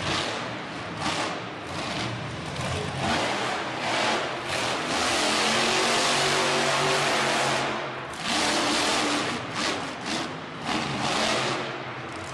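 Monster truck's supercharged big-block V8 revving in repeated throttle bursts, held at full throttle for about three seconds in the middle, then more surges as the truck launches over a dirt jump.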